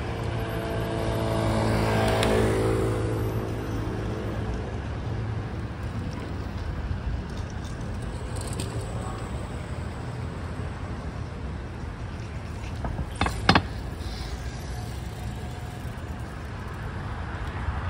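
City street traffic: a car passes about two seconds in, over a steady low hum of traffic. Two sharp knocks about thirteen seconds in are the loudest sounds.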